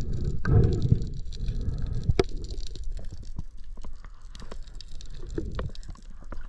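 Underwater noise as heard through a submerged action camera: a low rumble of water movement about half a second in, then scattered sharp clicks and crackling.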